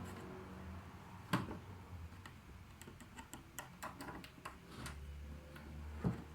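Knife blade clicking and tapping against a TV's glued LCD panel and frame as it is worked along the edge: a string of light, irregular clicks, the sharpest about a second in, a quick run in the middle and another near the end, over a low steady hum.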